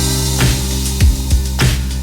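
Background electronic music with a heavy bass line and a steady kick-drum beat.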